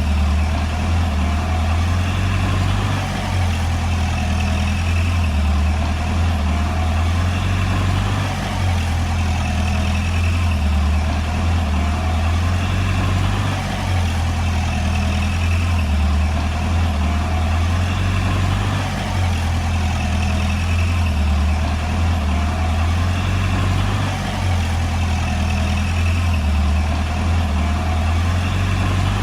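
Heavy diesel engine of earthmoving machinery running steadily, a deep low-pitched drone that swells and eases slightly every few seconds as the load changes.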